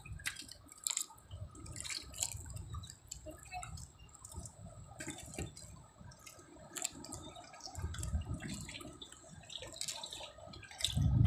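Light, irregular splashing and dripping of water, with a low rumble that comes and goes.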